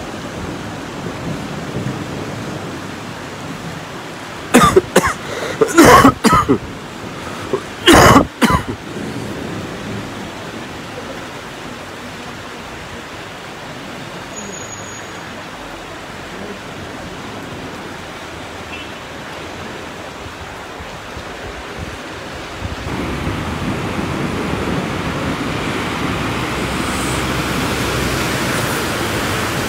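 Steady rain falling on a flooded street. Several loud, short bursts close to the microphone come about five to eight seconds in. From about 23 seconds in, the water noise grows louder as a car drives through the floodwater, throwing up spray.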